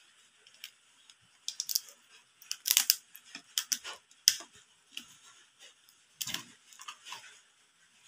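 Steamed blue swimming crab being pulled apart by hand, its shell cracking and snapping in a quick run of sharp crunches, with a duller knock about six seconds in.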